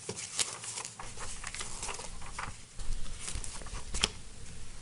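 Paper handled and pages turned close to a microphone: a run of irregular crackles and taps, the sharpest about four seconds in, over a low hum.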